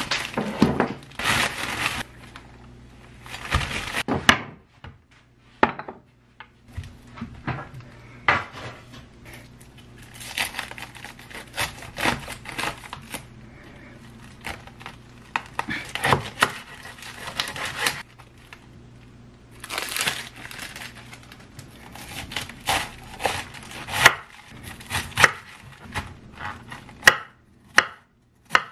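A plastic bag crinkling as a head of cabbage is taken out of it, then a chef's knife cutting and slicing the cabbage on a wooden cutting board, with repeated sharp knocks of the blade on the board.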